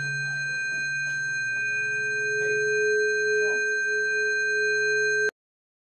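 Sound-design drone of several steady pure tones at once, a high ringing over a low hum, with fainter short sounds beneath it. It cuts off abruptly to silence about five seconds in.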